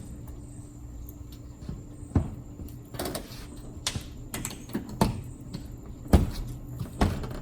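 Irregular clicks and knocks, about seven over several seconds, the loudest about six seconds in, from hands working the pool cover's straps and fittings. A low steady hum runs underneath.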